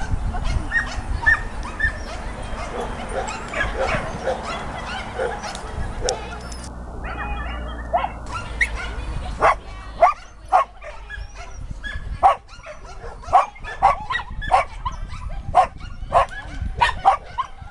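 Small dog barking over and over in short, sharp barks, coming about every half second to a second from about halfway through and louder than anything else, over a low background murmur of voices.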